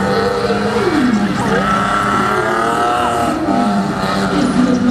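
A BMW 3 Series drift car's engine revving up and down, its pitch rising and falling again and again, with tyres squealing as it slides.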